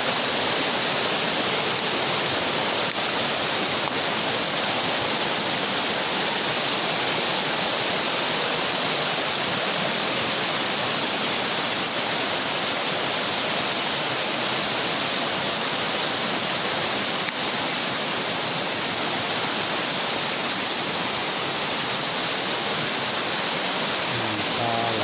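Flash-flood runoff water rushing steadily, a constant loud rush of flowing water.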